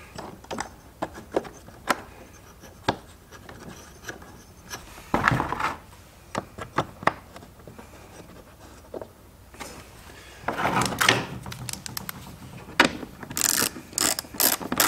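Plastic parts clicking, knocking and rubbing as a fog light is worked into a plastic bumper cover by hand. Near the end, a ratchet clicks rapidly as it starts a screw into the plastic.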